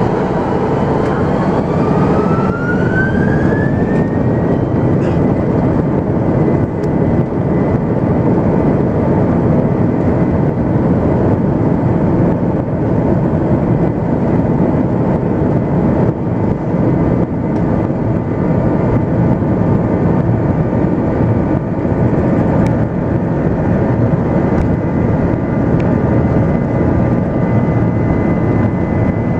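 Airbus A330-300's Rolls-Royce Trent turbofans heard from inside the cabin spooling up to takeoff thrust: a whine rises over the first few seconds, then holds steady over a loud roar.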